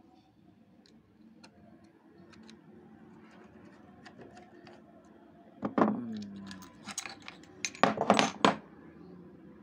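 Small clicks from a screwdriver working the blade screws of a Wahl hair clipper, then the steel blade set is lifted off and put down on the hard table: one metallic knock with a short ring about halfway through, and a quick metal-on-metal rattle about two seconds later.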